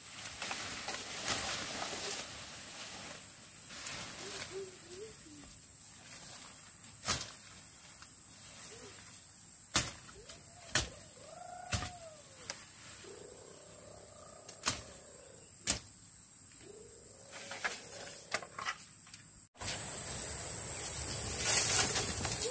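Machete chopping through vines and brush, sharp single strikes every second or so, with birds calling in between. Near the end a louder stretch of rustling and clatter as bamboo poles of the shed roof are handled.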